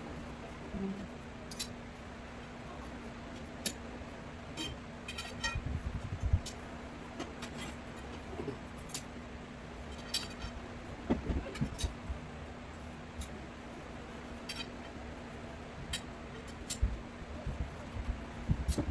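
Metal grow-tent frame poles clinking and knocking now and then as they are handled and pushed into their corner connectors, over a steady low hum.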